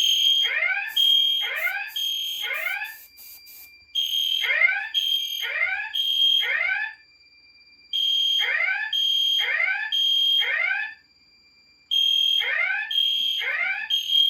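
EST Genesis horn strobes sounding the temporal-3 evacuation pattern: three short high-pitched blasts, a pause, and again, about every four seconds. This is the general fire alarm signal, set off here by a smoke detector going into alarm. A faint steady high tone carries on between the groups of blasts.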